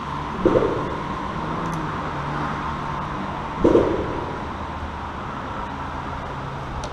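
Steady hum of road traffic on the bridge overhead, with two short, louder thumps about three seconds apart.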